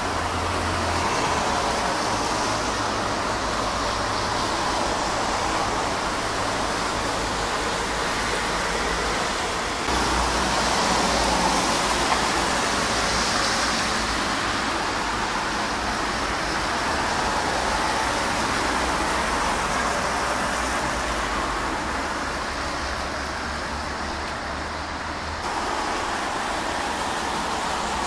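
Steady rushing background noise of distant road traffic, shifting slightly in level about ten seconds in and again near the end.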